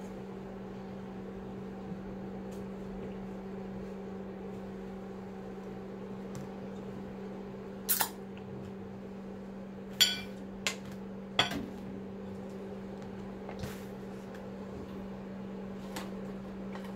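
Dishes and utensils clinking and knocking on a kitchen counter: a few sharp clinks about halfway through, over a steady low electrical hum.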